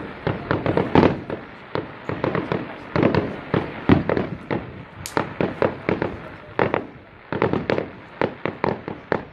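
Fireworks display: a rapid, irregular string of sharp bangs, several a second, each trailing a short echo, with a brief high whistle about five seconds in.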